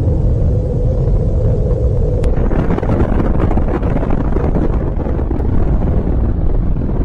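Deep, continuous rumble of a nuclear explosion, with a sharp crack about two seconds in followed by a few seconds of crackling.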